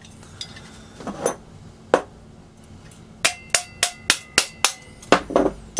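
Light tapping on the top of a Briggs & Stratton Large Flo Jet carburetor to break it free of the gasket seal: a couple of single knocks, then a quick run of about six sharp taps with a faint metallic ring.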